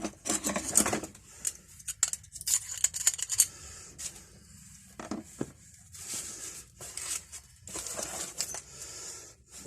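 Steel sockets and ratchet from a socket set being handled, clinking and rattling in irregular clusters, with stretches of rustling from the packaging.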